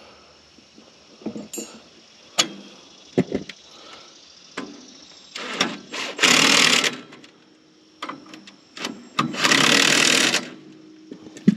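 A power tool run in two bursts of about a second and a half each, with scattered metal clinks and knocks between them.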